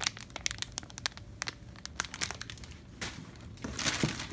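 Clear plastic wrapping crinkling around squishy toy apples as they are handled, a run of irregular small crackles that thins out about halfway through.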